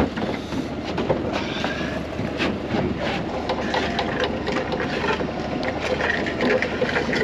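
Net hauler on a small fishing boat hauling in a set net: steady mechanical clatter with irregular knocks.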